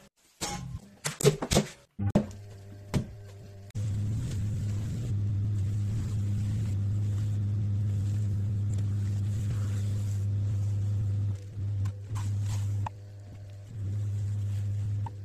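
Electric potter's wheel motor humming steadily while clay is thrown, after a few sharp knocks in the first two seconds. The hum drops briefly twice near the end.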